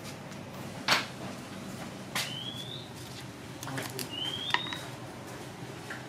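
A bird's rising whistled chirp, heard twice about two seconds apart, each opening with a short click. There is a single sharp knock about a second in.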